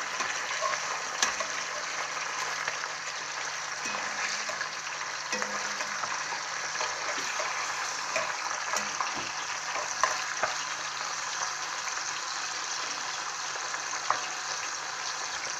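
Goat liver sizzling steadily in hot oil in a cast-iron skillet, with a few light clicks of metal spatulas against the pan as the pieces are turned.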